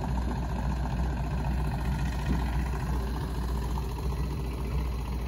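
Boat engine idling steadily, a continuous low rumble.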